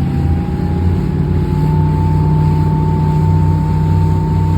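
Motorboat engine running under way at speed, its whine rising slowly in pitch as the boat speeds up.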